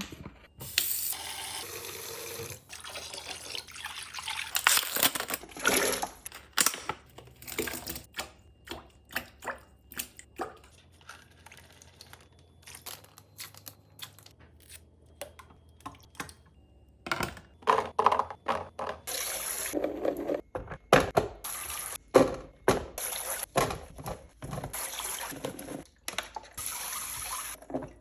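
Water running in stretches, as from a kitchen tap or being poured, between many short clicks and knocks of containers and packages being handled.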